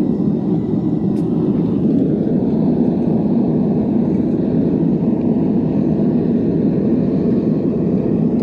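Gas forge burner running with a loud, steady rushing roar while the steel heats.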